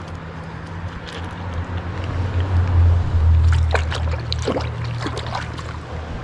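Water splashing and sloshing as a caught trout is let go into the river from the hand, a cluster of short splashes in the second half, over a low rumble that swells about two to three seconds in.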